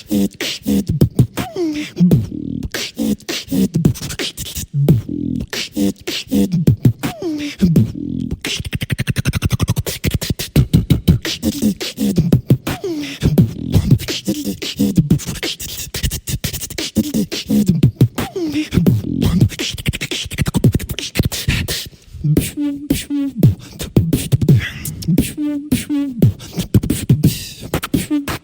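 Solo beatboxing: a dense, fast rhythm of mouth-made kick, snare and hi-hat sounds over sliding, pitched bass tones, with a few very brief breaks.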